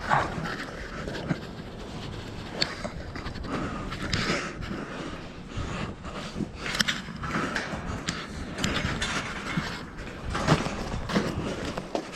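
Heavy breathing close to the microphone, in repeated swells, with scattered clicks and knocks of handling as someone squeezes or climbs through an opening.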